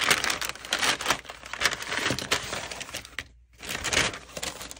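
Kraft paper mailer bag crinkling and crackling as it is opened by hand, with a brief pause about three seconds in, then a little more rustling as the contents are slid out.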